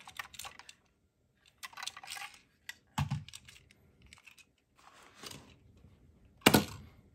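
Tomica die-cast toy ambulances handled in the hands, with small clicks and rattles in short clusters. There is a knock about 3 s in and a louder one near the end as a car is set down on the wooden floor.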